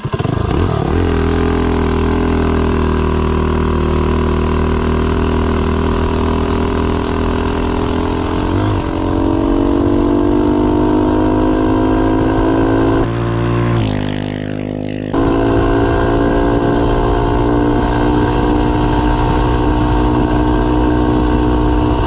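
Tillotson 225 single-cylinder four-stroke minibike engine, fitted with 1.2 ratio rocker arms and a racing cam and head, running wide open on a top-speed run. Its note climbs quickly at the start and then slowly as the bike gathers speed, with a brief drop in the sound about thirteen seconds in.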